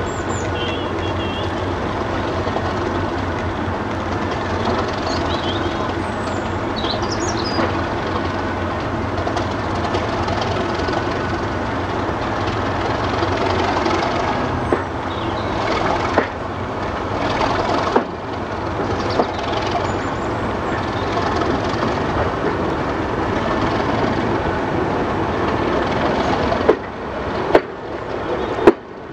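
A diesel-hauled train heard from an open carriage window: the English Electric V12 engine of a Class 37 locomotive working steadily as the train pulls away, with the coach wheels running on the rails. In the second half, and several times near the end, the wheels give sharp loud clacks over the track.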